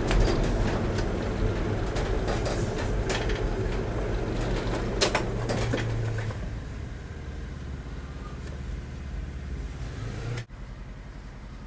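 Car engine running, heard from inside the cabin as the car pulls up and stops at a closed level-crossing barrier, with scattered clicks and knocks. It grows quieter about six seconds in.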